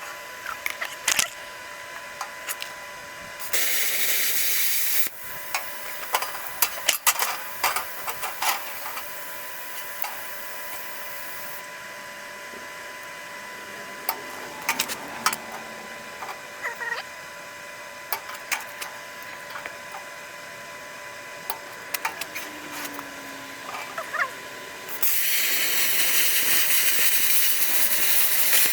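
Shop work on steel parts: scattered metal clinks and knocks as pieces are handled, with a short burst of steady hissing a few seconds in and a longer one starting near the end.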